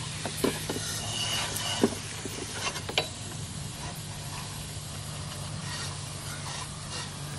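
Water spraying from a garden-hose nozzle onto a plastic toy truck: a steady hiss with scattered sharp taps of water on the plastic. A steady low hum runs underneath and stops near the end.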